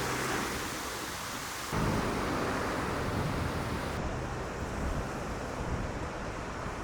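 Steady rushing noise, changing abruptly in character twice.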